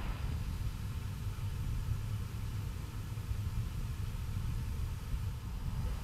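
Outdoor wind buffeting the microphone: a low, fluttering rumble with no other distinct sound over it.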